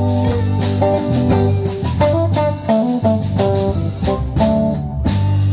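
Band playing an instrumental passage between sung verses: guitar over bass and drum kit.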